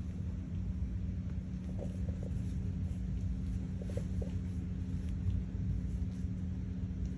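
A steady low rumble with a constant hum, and a few faint short squeaks from 17-day-old puppies about two and four seconds in.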